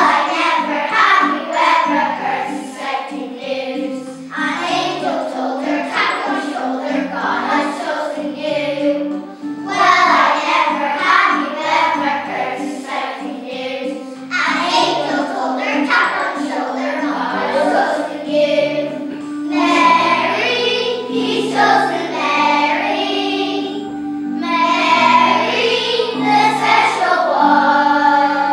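A group of young children singing a song together in chorus, with musical accompaniment underneath.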